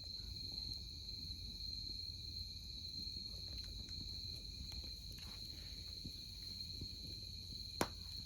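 Crickets singing in a steady, unbroken high trill over a low outdoor rumble, with one sharp click near the end.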